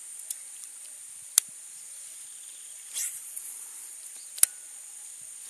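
Steady high-pitched insect chorus over a marsh, broken by two sharp clicks about three seconds apart and a brief hiss in between.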